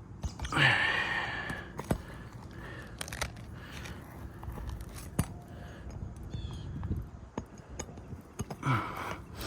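Scattered scraping, crunching and a few sharp clicks of a metal roofing snake and nail being worked into place under an asphalt shingle.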